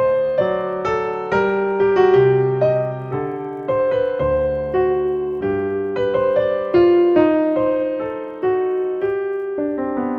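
Solo piano music: a slow melody of single struck notes over held chords, each note fading after it is played.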